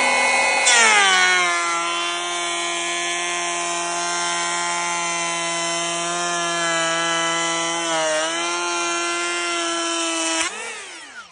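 Makita 40V cordless planer running a pass along tannalised timber, its motor whining loudly. The pitch drops as the blades bite the wood about a second in, holds steady under load with a brief dip around eight seconds in, then winds down near the end.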